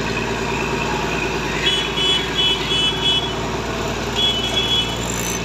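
Heavy crane engines running steadily under load while lifting a concrete bridge girder. A high electronic warning beep repeats in a run of quick beeps starting a little under two seconds in, and again shortly before the end.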